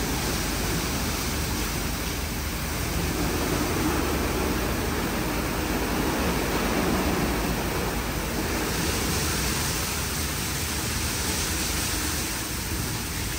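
WashTec SoftCare2 Pro gantry car wash running, a steady rushing noise with a low rumble underneath.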